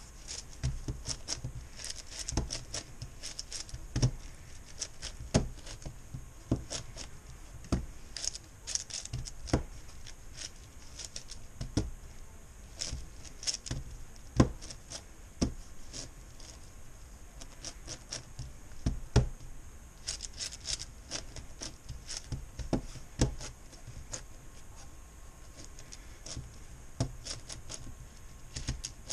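Plastic layers of a MoYu Meilong 10x10x10 cube being turned one-handed while its centres are built. It gives a quick, irregular clicking with louder clacks every second or two.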